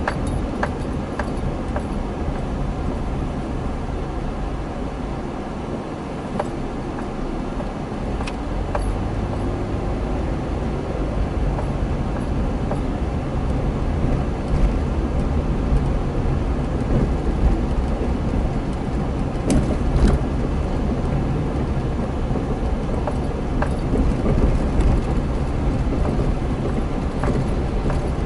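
A car driving on a rough street, its engine and road noise heard from inside the cabin, with a few sharp clicks or rattles.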